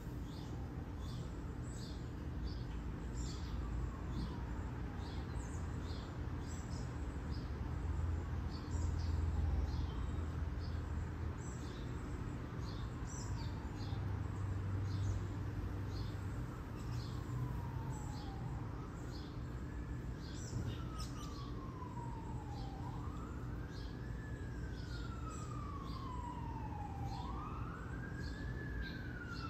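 A siren wailing in the distance, its pitch rising quickly and then falling slowly about every four seconds, growing louder toward the end, with birds chirping throughout and a low steady hum underneath.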